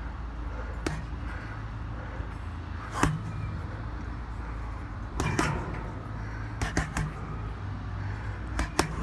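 City street ambience: a steady low traffic rumble with scattered sharp knocks and clicks, a cluster of them in the second half.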